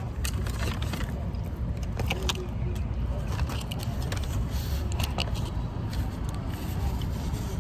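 A steady low rumble with scattered light clicks and rattles through it.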